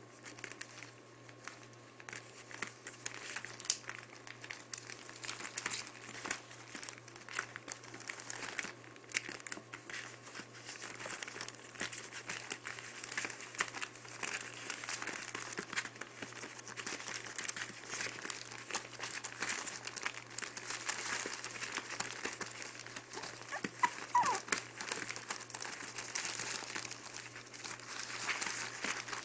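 Newspaper lining a puppy pen crinkling and rustling as six-week-old Maltipoo puppies scramble and play on it, with a short squeak about three-quarters of the way through.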